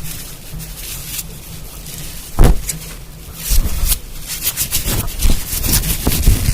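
Objects handled close to the microphone: soft rubbing at first, a single sharp knock about two and a half seconds in, then a quick run of light taps and scratches.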